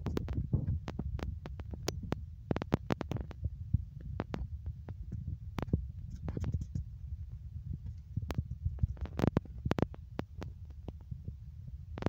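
Handling noise on a handheld phone's microphone as it is carried: a fluctuating low rumble with irregular sharp clicks and knocks throughout.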